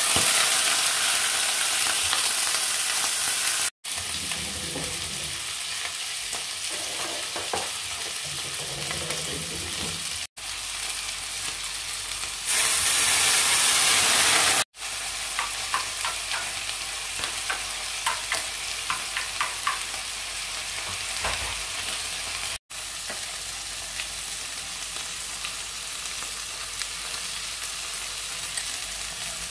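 Squid sizzling as it pan-fries in hot oil in a stainless steel frying pan: a steady hiss with scattered crackles of spattering oil. About halfway the sizzle flares louder for a couple of seconds as rum hits the hot pan and steams.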